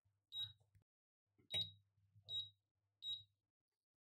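Touch-control beeps from a Defy glass-ceramic electric hob as its power level is stepped up by finger presses: four short, high beeps, one per press, the second slightly louder.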